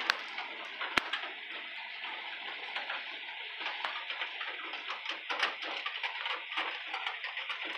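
Steady summer rain falling, a continuous hiss dotted with many small, close drop ticks, and one sharp click about a second in.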